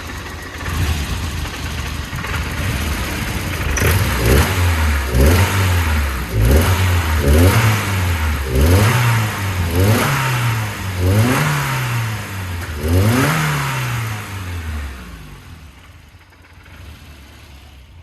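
Volvo 240 redblock four-cylinder engine idling roughly, then blipped up and down about eight times in quick succession, with light pinging the owner puts down to ignition timing that needs adjusting. Near the end it falls back and dies.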